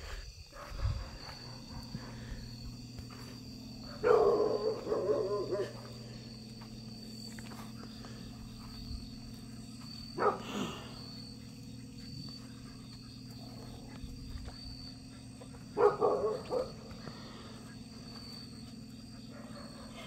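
Two loud animal calls, each about a second and a half long and roughly twelve seconds apart, over a steady low hum.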